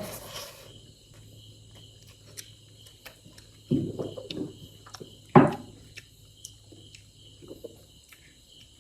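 A person eating pressure-cooked chicken and rice: faint chewing and small mouth clicks, with two short louder noises about four and five and a half seconds in.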